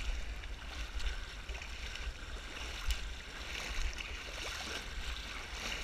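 Water sloshing and splashing around a person wading through a reedy pond, with a few small splashes over a steady low rumble.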